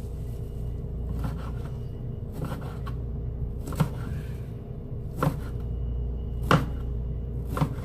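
Kitchen knife chopping on a cutting board in slow, separate strokes, six in all, about one every second and a bit, over a steady low hum.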